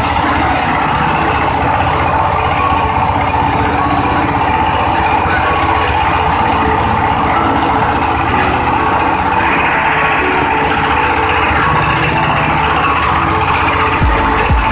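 Coconut husk fibre-separating machine running steadily, a loud continuous mechanical noise. Near the end a low, regular thumping sets in.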